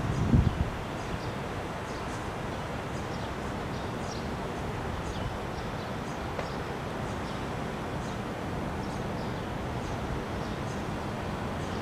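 Steady hum of city traffic, with faint high chirps of small birds at intervals and a brief gust of wind on the microphone at the very start.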